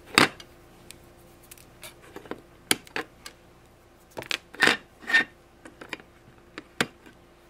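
Flush-cut diagonal cutters snipping off excess wire leads sticking through a soldered circuit board, a sharp click with each cut, about six cuts at irregular intervals.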